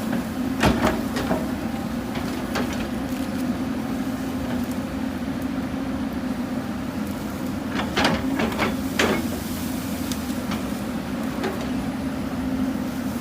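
Hyundai 220 excavator's diesel engine running steadily, with a few sharp knocks about a second in and a quick cluster of knocks around two-thirds of the way through as it works the hillside.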